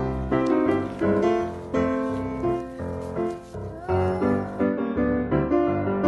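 Piano-led background music with a steady beat.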